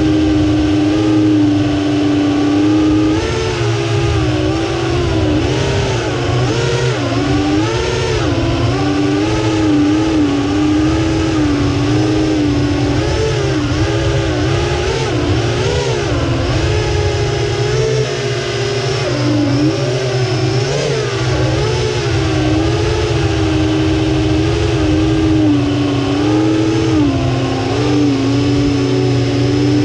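A 6-inch FPV quadcopter's Konasty 1739KV brushless motors and Azure 6145 props whine as heard from the onboard camera. The pitch rises and falls constantly with the throttle, over a low rumble of wind on the microphone.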